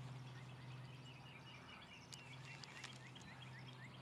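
Faint outdoor ambience at the water's edge: a steady low hum with a run of short, high, rising chirps from a small bird, about four a second, starting after a second or so.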